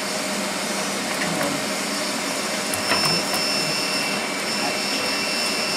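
Steady fan-like machine noise, with a faint high-pitched whine joining about halfway through and a few faint clicks around then.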